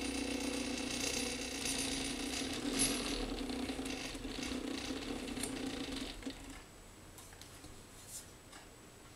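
Stepper motors of a small Arduino-controlled photo robot head running with a steady hum through their gear drive, stopping about six seconds in. A single short click near the end.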